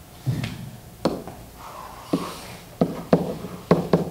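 Short, sharp taps and knocks of a pen stylus striking an interactive whiteboard as the letters of "CDH" are written, about eight in all, coming quicker near the end.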